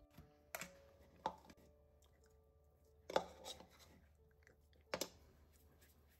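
Metal teaspoon and spatula scraping and knocking against a plastic chopper bowl while scooping sticky gingerbread cheesecake mixture, with four sharp taps spread through.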